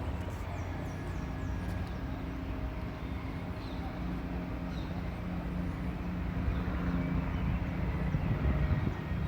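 Steady low rumble of distant engines, growing a little louder near the end.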